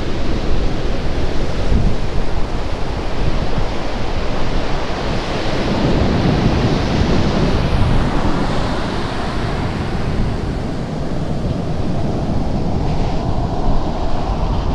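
Arabian Sea surf breaking and washing up a sandy beach: a continuous rushing that swells louder about six seconds in. Wind rumbles on the microphone throughout.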